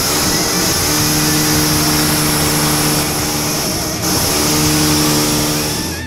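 Heavy engine sound effect: a motor running with a loud hiss and a low steady hum that comes in about a second in, breaks off briefly past the middle, then returns.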